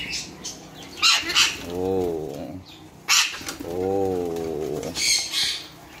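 Orange-winged Amazon parrots giving several short, harsh squawks, untamed birds that are still aggressive, with two longer, lower, wavering calls in between. There is a flurry of wing flapping near the end.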